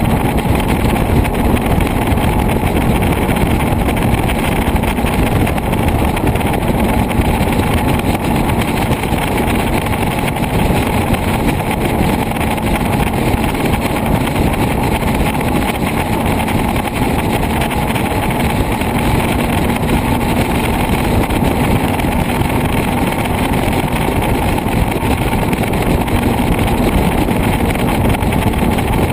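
Motorcycle engine running steadily at motorway cruising speed, with heavy wind rush on the microphone.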